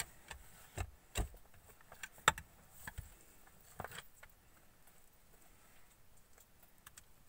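A few scattered, sharp knocks and clicks, like gear or stones being handled on cave rock, the loudest about two seconds in; after about four seconds only a faint background remains.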